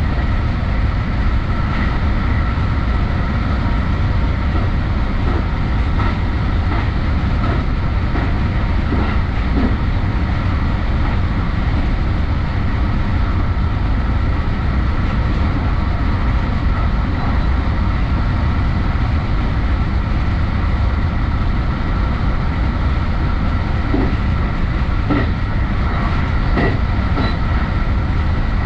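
Electric commuter train running at speed, heard from inside at the front of the train. It makes a steady low rumble with a faint steady whine, and light clicks from the track come now and then.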